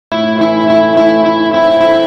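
Instrumental intro music with held chords that start abruptly right at the beginning.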